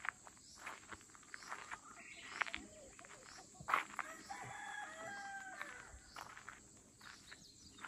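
A rooster crowing once, a held call stepping up in pitch about halfway through, among scattered sharp ticks and clicks, the loudest tick just before the crow.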